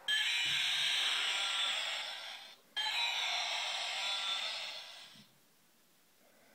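The sound chip inside a Gund Parasaurolophus plush toy playing its recorded dinosaur call twice, each time for about two and a half seconds, thin and without bass as from a small speaker.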